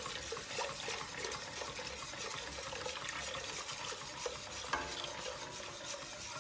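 A wire whisk stirring thin flour-and-water batter in a stainless steel pot, with steady light ticking of the wires against the pot as more batter is poured in.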